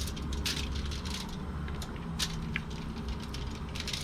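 Hands rubbing olive oil into a whole pompano's skin and scored cuts: soft wet squishing with scattered small clicks, over a steady low hum.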